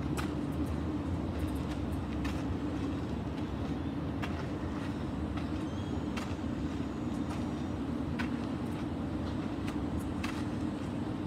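Steady low outdoor background rumble, with a light tap of a sneaker landing on the gravel about every two seconds as the alternating lunges step back and forth.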